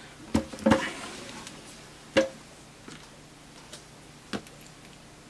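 Scattered clicks and light knocks as the electrofusion welder's case and front panel are handled and fitted during reassembly, six or so in all, the loudest about two seconds in.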